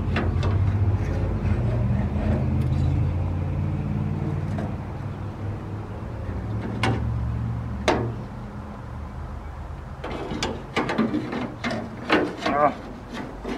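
Chrome headlight bezel clicking and tapping against the grille and headlight surround of a 1966 Chevy Impala as it is worked into place: single sharp clicks about seven and eight seconds in, then a quick run of metal clicks and rattles near the end. A low steady hum underneath fades out about two-thirds of the way through.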